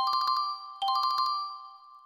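An Android 10 ringtone melody played as a MIDI synth rendition in Synthesia: two quick phrases of high ringing notes, the second starting just under a second in, each ringing out and fading.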